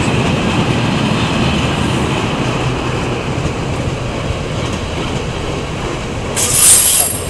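Freight train of tank wagons rolling past close by, a steady rumble of wheels on the rails. Near the end a brief high-pitched wheel squeal cuts in, the loudest moment.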